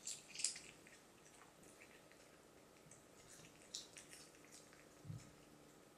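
A cat chewing cooked sea bream bones off a plate: faint wet clicks and crunches in short clusters, loudest just after the start, with a soft low bump about five seconds in.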